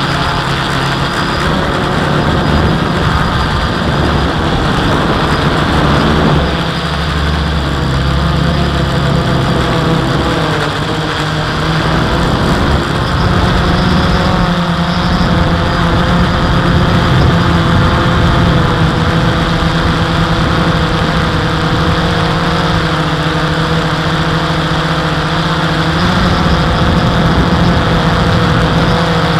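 Quadcopter drone's electric motors and propellers heard from its own onboard camera in flight: a steady buzzing hum whose pitch wavers slightly as it manoeuvres.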